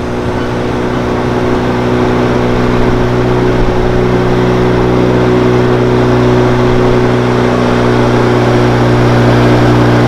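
Boat motor running steadily at cruising speed, a constant engine hum with the rush of water along the hull, growing a little louder over the first two seconds.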